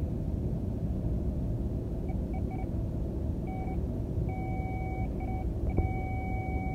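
Power Probe circuit tester's tone beeping in short broken bursts, then sounding steadily from about six seconds in, its signal that the probe tip is touching ground. A steady low rumble runs underneath.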